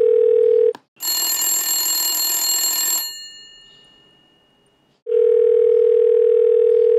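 Telephone call sounds: a steady ringback tone that stops just under a second in, then a bright telephone ring for about two seconds that fades away. The steady tone comes back about five seconds in.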